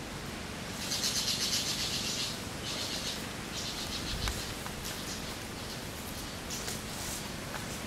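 Forest ambience with a high, rapid buzzing trill about a second in, lasting a second and a half, then several shorter buzzy bursts over a steady background hiss.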